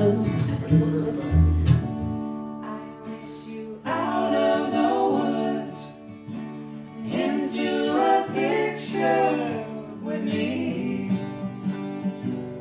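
Live acoustic music: a strummed acoustic guitar chord rings out, then two acoustic guitars play with sung vocal lines over them.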